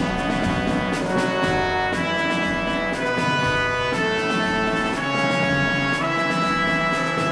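Instrumental background music with brass to the fore, playing held notes that change about every half second to a second.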